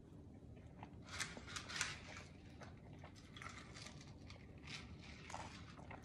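Quiet close-miked chewing of pizza, with short clicking bites and mouth sounds clustered about a second in and again from about three and a half seconds on.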